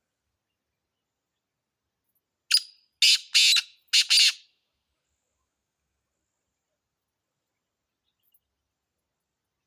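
Black francolin (kala teetar) calling: one short note, then three quick scratchy notes, about two seconds in all, starting about two and a half seconds in.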